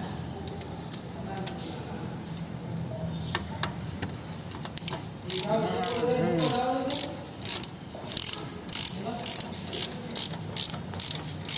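Ratchet wrench clicking through short tightening strokes, roughly two clicks a second from about halfway in, as the A/C compressor belt and its adjuster bolt are tightened, with a brief squeak partway through.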